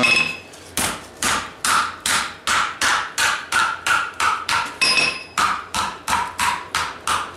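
Hand hammer striking a red-hot thin-walled steel tube on an anvil in steady blows a bit over two a second, flattening it. One blow about five seconds in rings out briefly.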